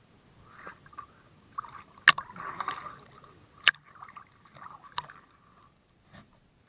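Water sloshing and splashing around a person wading chest-deep, heard through a camera dipping in and out of the water, with three sharp clicks about two, three and a half, and five seconds in.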